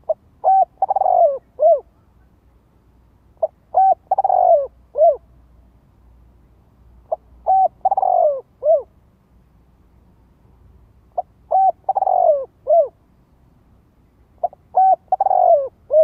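Spotted dove cooing its advertising call, the call used to lure wild doves to a decoy. Five phrases come about every three and a half to four seconds. Each phrase is two short notes, a longer falling note and a final short note, and the last phrase is cut off at the end.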